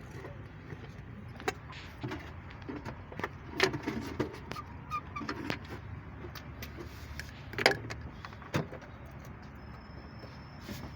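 Rebuilt car engine running at a steady idle, a low even hum, with scattered metallic clinks and knocks over it, the sharpest about two-thirds of the way through.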